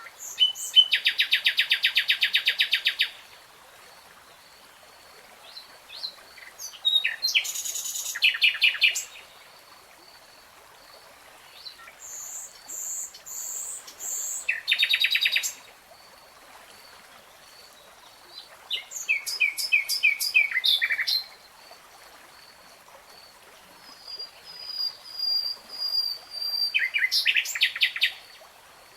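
Nightingale singing in five separate phrases a few seconds apart, each a fast run of rapidly repeated notes or trills, with a faint steady high note running between phrases.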